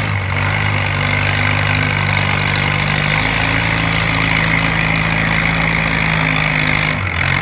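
Antique farm tractor's engine running steadily while it pulls a weight-transfer sled, easing off near the end.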